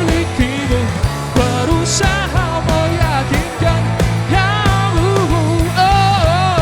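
Pop-rock band music with a steady drum beat, bass and a lead melody line that slides and bends in pitch.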